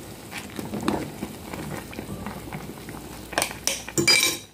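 Noodle broth boiling in an aluminium pot while a utensil stirs and scrapes the noodles against the pot, with a few louder metal clinks on the pot near the end.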